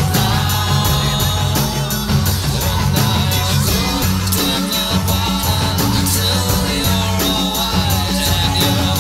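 Rock song with electric guitars, bass and a steady drum beat.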